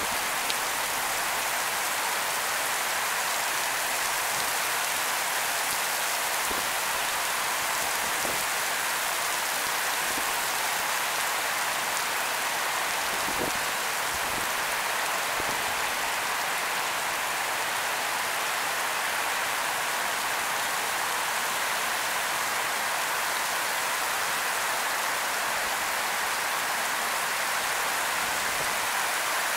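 Torrential rain pouring onto the pavement: a steady, even hiss with no let-up.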